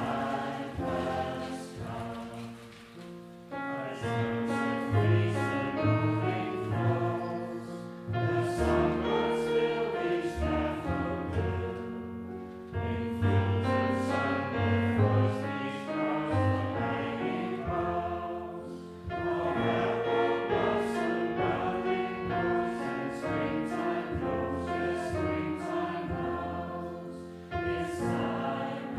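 A mixed group of men and women singing a song together, in long phrases with brief breaks between them.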